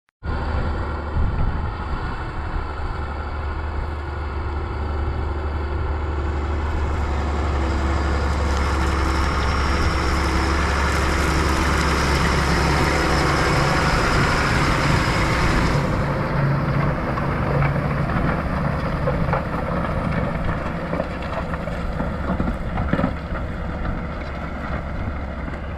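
Tractor diesel engine running steadily; about sixteen seconds in, the higher hiss drops away while the low engine hum carries on.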